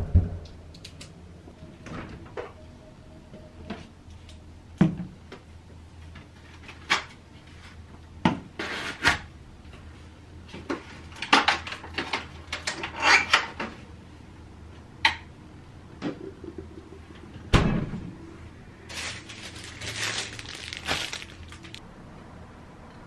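A run of household handling noises: clicks and knocks of doors and a refrigerator being opened and closed, and packaged food being set down on a stainless-steel counter, with one heavy thump about three-quarters of the way through.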